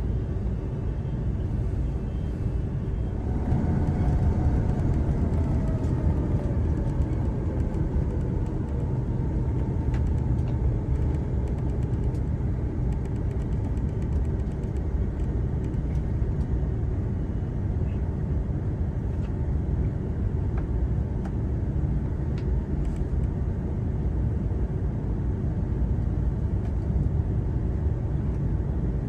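Airbus A330-300 cabin noise: a steady low rumble of engines and airflow. About three seconds in it grows louder and a whine appears that slowly falls in pitch over several seconds before the rumble settles.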